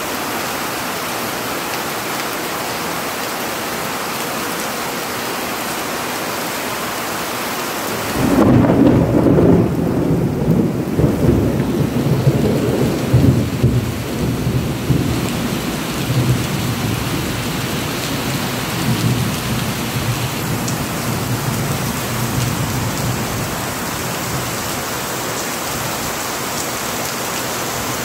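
Heavy rain falling steadily. About eight seconds in, thunder breaks suddenly into a loud, low rolling rumble that goes on for several seconds and slowly fades back under the rain.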